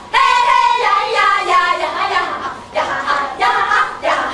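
Performers' voices singing in short, high-pitched phrases, a longer line followed after a brief pause by shorter ones.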